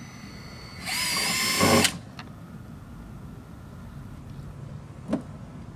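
Cordless drill running in one burst of about a second with a whining pitch, driving a screw through a plastic cooler mounting block into a boat deck. A single sharp knock about five seconds in.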